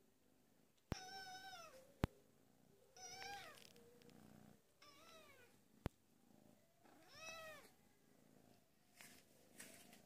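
Persian cat meowing four times, short arching mews about two seconds apart, with a few sharp clicks in between.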